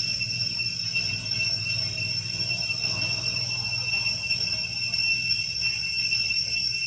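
Steady, high-pitched insect drone of tropical forest, holding one unbroken pitch, over a low steady hum.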